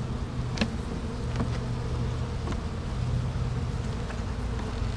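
Honey bees buzzing steadily in an opened hive, a dense hum, with a few light clicks over it.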